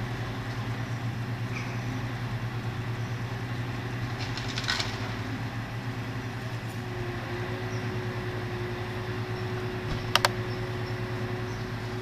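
Truck-mounted crane's engine running steadily, with a hydraulic whine whose pitch rises slightly about seven seconds in. Two short sharp clacks, one about five seconds in and one about ten seconds in.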